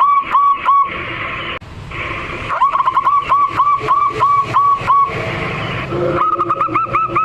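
Zebra dove (perkutut) singing vigorously: quick runs of short, clipped cooing notes, each run lasting a couple of seconds. There are three runs, with short pauses between, and the last is a little higher in pitch.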